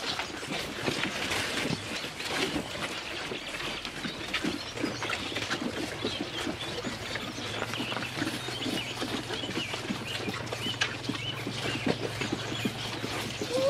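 Calves jostling at a feeder, with scattered small knocks and shuffling, and birds chirping in the background. A low steady hum comes in about four seconds in and fades near the end.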